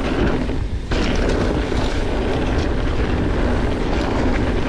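Wind rushing over a bike-mounted or body-mounted action camera's microphone together with mountain-bike tyres rolling over a dirt trail, with frequent small rattles and knocks from the bike. The noise gets suddenly louder about a second in.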